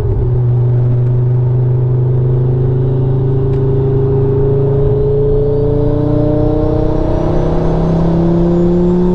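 Tuned Ford Focus RS Mk2's turbocharged 2.5-litre five-cylinder engine heard inside the cabin, pulling steadily in gear with its note slowly rising as the car gathers speed. A thin high whistle climbs in pitch along with it.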